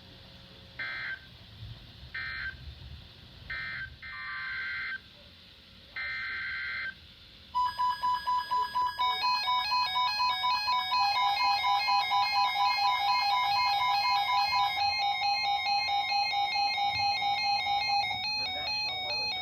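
Emergency Alert System tones. In the first seven seconds come five short buzzy bursts of two-pitch digital data tones. Then about twelve seconds of loud electronic alert tones: a steady high tone, with a beeping, stepping electronic melody over it.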